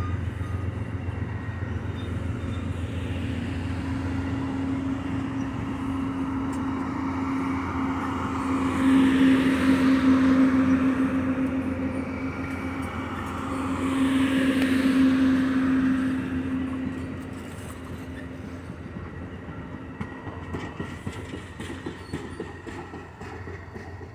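Amtrak passenger cars rolling past, steel wheels running on the rails with a steady low hum. It grows louder twice, about a third and two thirds of the way through, then fades as the last car goes by.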